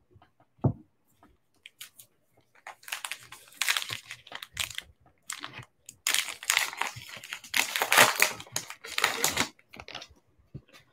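Trading card pack wrapper being torn open and crinkled by hand, in two long spells of rustling, after a single knock just under a second in.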